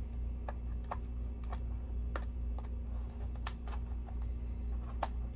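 Light, irregular clicks and taps of a screwdriver and fingertips on the plastic bottom cover of an HP EliteBook laptop as its case screws are undone, about a dozen in all, over a steady low hum.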